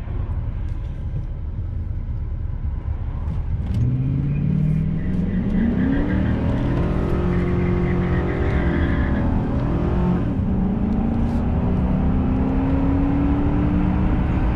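GMC pickup truck's engine, heard from inside the cab, idling low for about four seconds, then revving up under hard acceleration from a standstill. Its pitch climbs, drops back at gear changes about six and ten seconds in, and rises again.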